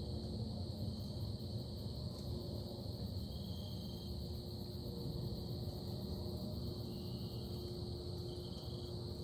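Steady low rumbling drone, with a thin steady hum and a faint, even high-pitched whine above it, unchanging throughout.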